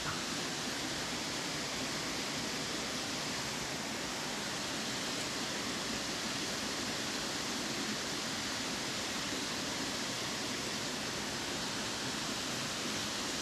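Steady, even rush of a waterfall and river water.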